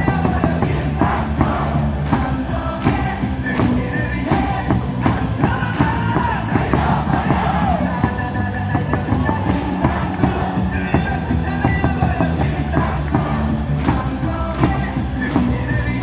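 Baseball stadium cheer music over the loudspeakers, with the crowd singing and chanting along to a steady beat.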